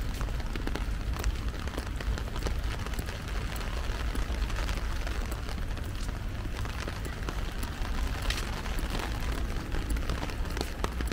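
Heavy rain falling on an umbrella: a dense, steady patter of drop impacts over a constant low rumble.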